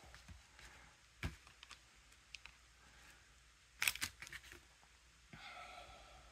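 Faint handling noises: a few short clicks and light rustles as a soft baked cookie is pulled apart by hand over a paper plate, the loudest cluster of clicks about four seconds in.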